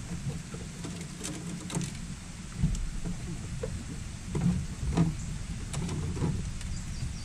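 Electric trolling motor on a bass boat running with a steady low hum, with a few light clicks and knocks from gear on the deck.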